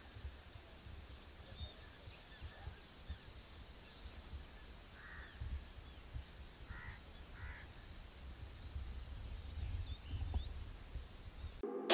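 Quiet outdoor morning ambience: low wind rumble on the microphone and a faint steady high whine, with a few distant bird calls about five to seven and a half seconds in.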